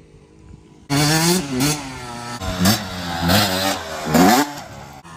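Dirt bike engine revving hard as it rides up and launches off a sand-pile jump. It comes in about a second in, with several rising and falling throttle sweeps, and is loudest about four seconds in.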